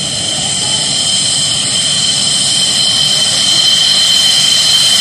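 MiG-29 fighter's twin RD-33 turbofan engines at taxi power: a steady high-pitched whine over a low rumble, slowly growing louder as the jet approaches.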